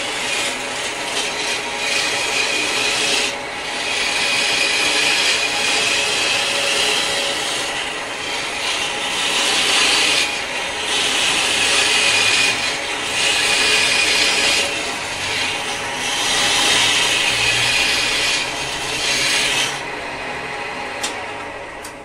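Homemade wood lathe spinning a wooden workpiece while a hand-held turning chisel cuts into it: a loud scraping hiss in passes of a second or two, over the steady running of the lathe. Near the end the cutting stops and the lathe sound drops away.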